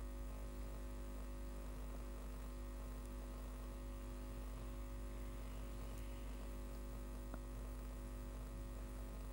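Steady low electrical mains hum over a faint hiss, with a few faint clicks.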